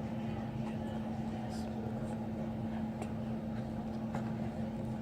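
A steady mechanical hum with a constant low tone, and a few faint clicks.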